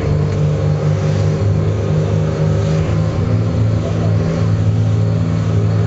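Motorboat engine running steadily under way, heard from inside the boat's cabin over the rush of water and wind against the hull.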